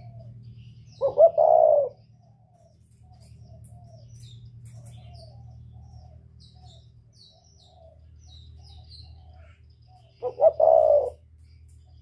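Spotted dove cooing twice, about nine seconds apart, each call a short phrase of a few quick notes running into a longer coo. A steady low hum and faint chirps of other birds sit underneath.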